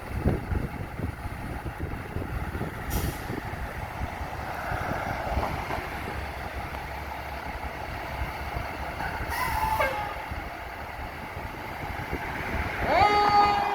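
Fire truck's diesel engine running with a steady low rumble, with short air-brake hisses about three seconds in and again about nine and a half seconds in. Near the end a siren starts up, rising quickly to a loud steady tone that sags slowly in pitch.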